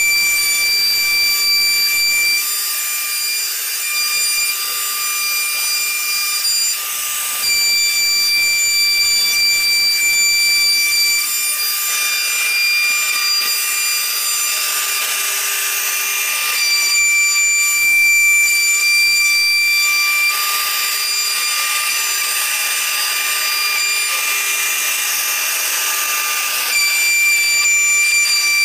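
CNC router spindle running with a steady high whine while its bit cuts grooves into a wooden door panel. The rasp of the cut swells and eases every few seconds as the bit travels through the wood.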